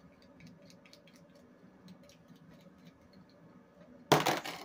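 Hands handling a radio-control truck on a workbench: faint light clicks, then a short loud burst of scraping noise about four seconds in.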